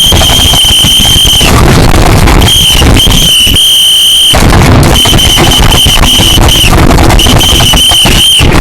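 Very loud, shrill whistle-like tone in about eight blasts of uneven length, over dense crackling noise.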